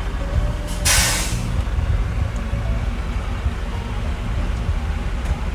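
Duramax 6.6-litre V8 turbo diesel of a 2011 GMC Sierra 2500HD idling, heard from inside the cab as a steady low rumble. A brief hiss cuts in about a second in.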